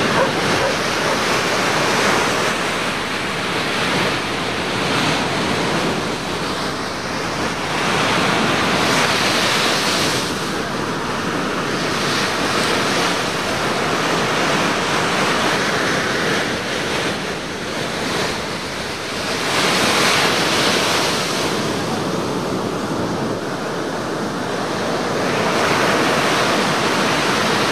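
Ocean surf breaking and washing ashore, a continuous rushing noise that swells louder every several seconds as waves break.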